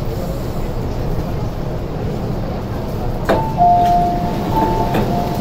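MTR Kwun Tong Line train at a standstill at the platform, its steady low rumble broken about three seconds in by a clunk as the doors release and slide open, with a two-tone door chime sounding, alternating high and low notes.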